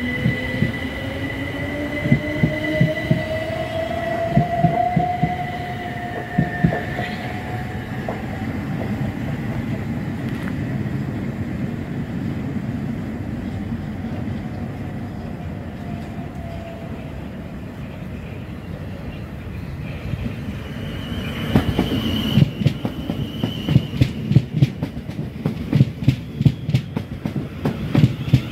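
Southern Class 377 electric multiple unit gathering speed, its motor whine rising in pitch over the rhythmic clatter of wheels on rail joints, then fading to a low rumble. About three-quarters of the way through, a South Western Railway electric train runs close past with fast clickety-clack from its wheels and a brief high steady squeal.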